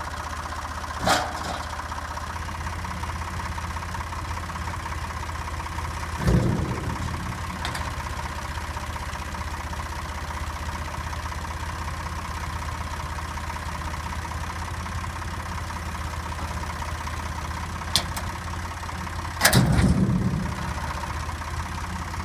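Tractor engine idling steadily while the Amazone Grasshopper GHS 180 flail mower-collector is worked, with a few clanks and thuds from the machine; the heaviest thud comes near the end.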